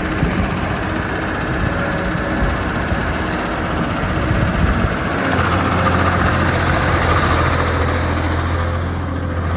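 Skid steer loader's engine running. About five seconds in, its note settles into a steady low hum, with a higher whine over it for a few seconds.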